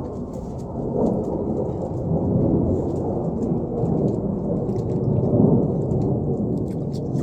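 Aircraft passing overhead: a loud, deep rumble that swells to a peak a little past the middle, with a few faint clicks near the end.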